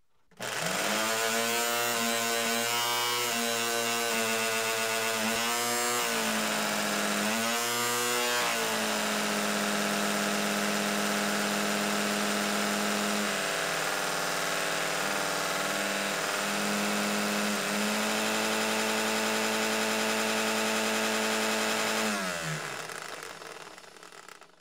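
Lawn mower engine running steadily, its pitch dipping briefly about six to eight seconds in, then winding down and stopping near the end.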